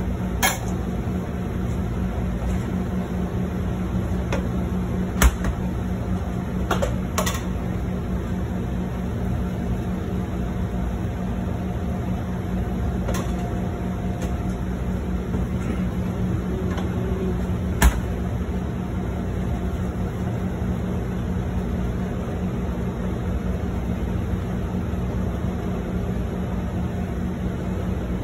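Steady low hum and even rushing noise of running commercial kitchen equipment beside a hot griddle. A few sharp clicks or knocks break in, the loudest about five seconds and about eighteen seconds in.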